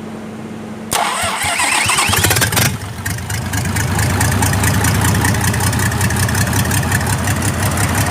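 Mitsubishi 6D14 six-cylinder diesel engine starting on its first run after an overhaul: the starter cranks it about a second in, it catches within about a second, then settles into a steady idle.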